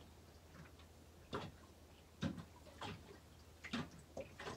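Faint, irregular clicks and light knocks, about five spread across four seconds, over a low steady hum.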